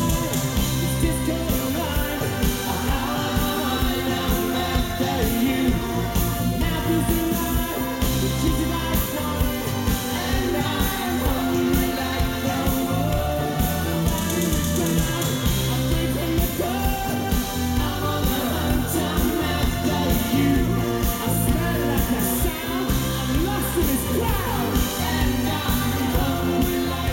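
Live new wave band playing in concert: singing over electric bass, keyboards and guitar with a steady beat.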